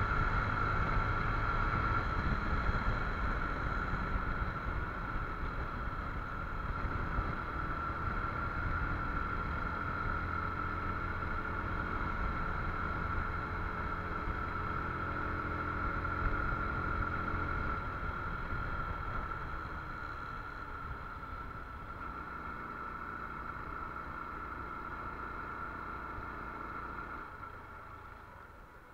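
Motorcycle ridden along an open road, its engine running under wind rush on the handlebar-mounted camera, with a steady high whine throughout. The sound grows quieter over the last several seconds.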